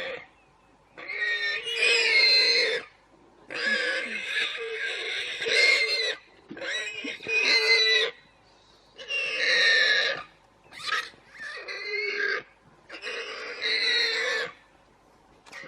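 An animal squealing in a run of loud, high, wavering cries, each a second or two long, with short pauses between them.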